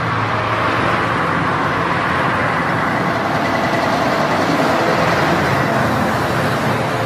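Heavy articulated truck, a Scania tractor unit pulling a container trailer, driving on a road: steady engine and tyre noise mixed with passing traffic.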